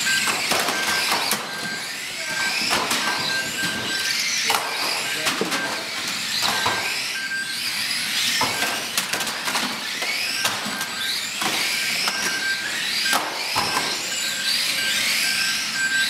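A pack of 1/12th-scale electric radio-controlled stock cars racing on a carpet track: many high motor whines rising and falling as the cars pass, with frequent sharp clacks of cars hitting each other and the barriers. A short high beep repeats through it.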